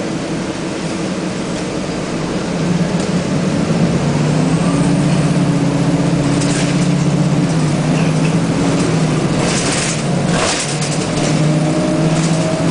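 Nova Bus RTS transit bus's Detroit Diesel Series 50 engine heard from inside the bus, pulling under acceleration. It gets louder about two and a half seconds in, dips briefly about ten seconds in, then picks up again, with a few short hisses near the end.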